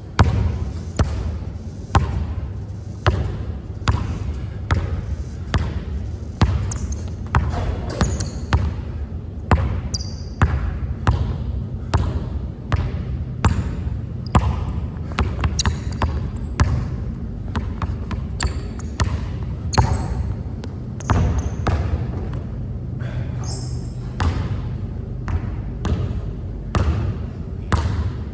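Basketball being dribbled hard and repeatedly on a court, sharp bounces at a steady pace of roughly two a second, over a steady low rumble.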